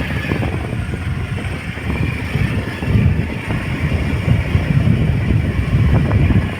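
Riding on a motor scooter: heavy wind buffeting the microphone in an irregular low rumble, over the scooter's running engine.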